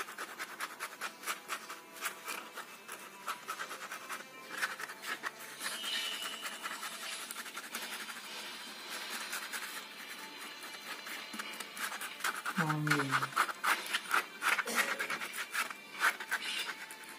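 Ballpoint pen scratching on paper in rapid back-and-forth hatching strokes.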